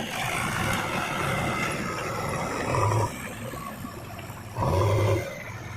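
Diesel engine of a JCB 3DX backhoe loader running, with two short louder surges about three and five seconds in as it takes load.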